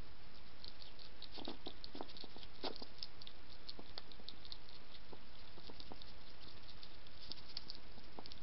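A wild hedgehog crunching dry kitten-food biscuits at close range: a quick, irregular run of small crisp crunches and clicks, thickest about one and a half to three seconds in, over a steady background hiss.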